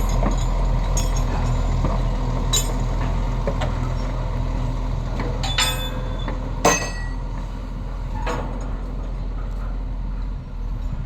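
Diesel engine of a crane running steadily, with several sharp metal clanks from the steel plate and its rigging being moved, the loudest about two-thirds of the way through.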